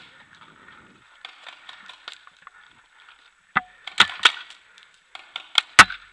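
Paintball marker firing: sharp pops, three in quick succession a little past halfway, then two more near the end.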